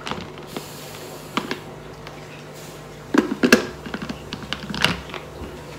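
Hard plastic clicks and knocks as the motor top of an electric mini chopper is fitted and pressed down onto its glass bowl, the loudest cluster a little past the middle, over a steady low hum; the chopper's motor is not yet running.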